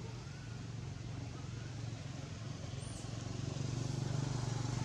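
A motor vehicle engine running steadily as a low hum, growing louder in the last second or so, with one short high chirp about three seconds in.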